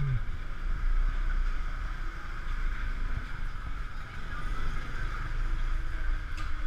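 Uneven low rumble of wind buffeting an action-camera microphone over steady background noise.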